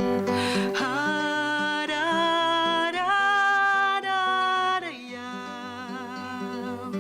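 Band music: a wordless voice holds long notes over guitar accompaniment, rising in steps and wavering before it stops about five seconds in. The guitar then carries on more quietly.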